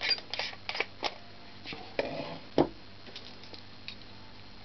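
Light metallic clicks and rattles as an SM58's wire-mesh grille is handled and fitted over a screwdriver handle, a few a second for about the first second. A brief rustle follows, then a single sharp knock about two and a half seconds in.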